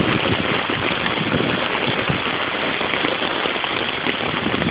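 Heavy rain falling steadily, with the low sound of an SUV's engine as it drives slowly through deep floodwater.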